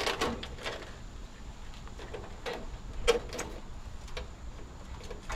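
A handful of sharp metal clicks and knocks from hand tools and wiring against the sheet-metal cabinet of a Goodman air conditioner being stripped for scrap, the loudest at the start and about three seconds in.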